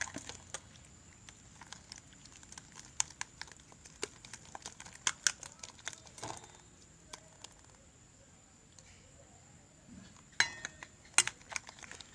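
Spoon stirring sticky homemade slime in a container: irregular sharp clicks and crackles as the still-sticky slime pulls and pops and the spoon knocks the container, with a brief cluster of louder clicks near the end.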